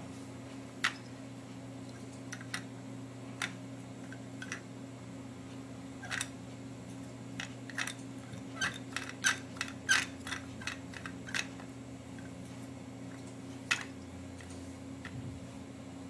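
A run of light, irregular clicks and taps from small hard objects being handled, thickest about eight to eleven seconds in, over a steady low hum.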